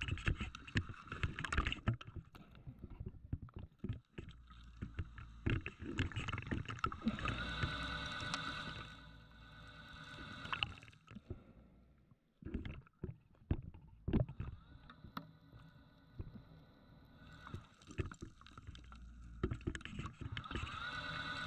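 Underwater, the electric motor of a diver propulsion scooter whines three times for a few seconds, rising in pitch as it starts each time, as its wash is used to blow sediment off the seabed. Between the runs there is irregular bubbling and knocking.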